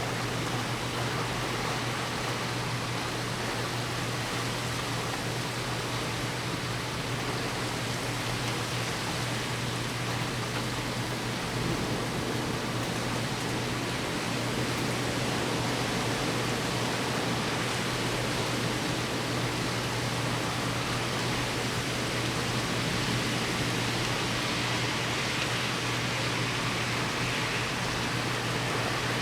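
Heavy thunderstorm rain pouring down: a steady, dense hiss that grows a little louder about halfway through, over a steady low hum.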